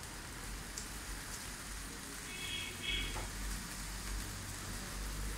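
Fountain sparkler candles on a cake fizzing with a steady, crackling hiss. Two short high beeps sound about two and a half and three seconds in.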